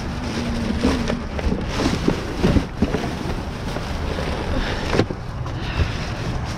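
Wind buffeting the microphone, with rustling and knocking of items being handled and moved while rummaging through a dumpster.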